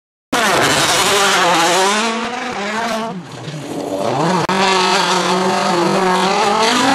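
Citroën DS3 WRC rally car's 1.6-litre turbocharged four-cylinder engine driven hard on gravel, its revs rising and falling through the gears. The sound cuts in abruptly just after the start and dips briefly about three seconds in as the throttle comes off, then picks up again.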